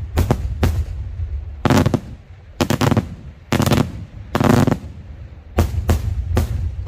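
Daytime aerial fireworks: a rapid string of shell bursts, about three bangs a second. In the middle the string gives way to four longer, rougher blasts about a second apart, and the rapid bangs resume near the end.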